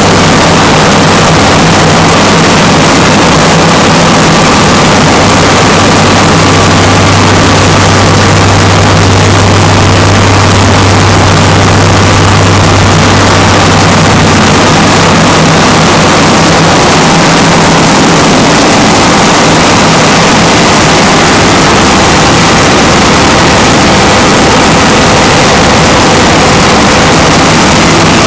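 Large Cummins diesel standby generator running steadily, with its engine and radiator fan together making a loud, continuous drone.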